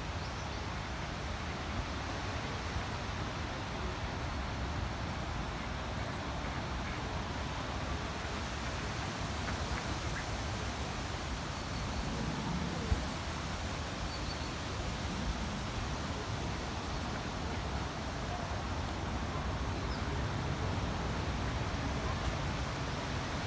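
Steady wind rumbling over the microphone, with ducks quacking now and then and one short sharp sound about halfway through.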